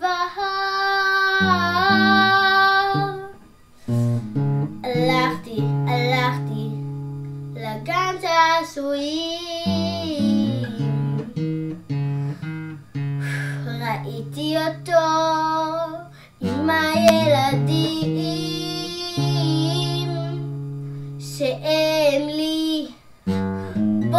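A young girl singing a melody with some long held notes, accompanied by an acoustic guitar playing chords.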